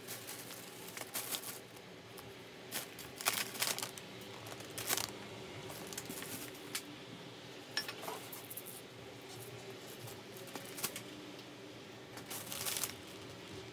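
Plastic shopping bags rustling and crinkling as groceries are lifted out, with scattered light knocks of packages against each other, over a faint steady hum.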